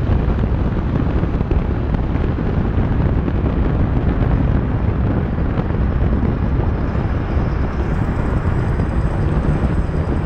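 BMW E60 M5 with a Hamann exhaust driving at a steady speed: a constant low rush of wind and road noise, with the car's V10 engine running under it.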